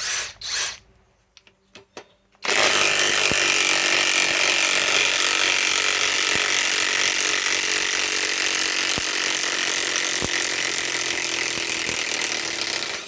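Cordless mid-torque impact wrench hammering continuously for about ten seconds, backing a 10-inch lag screw out of hardwood under heavy load, after two brief trigger blips near the start.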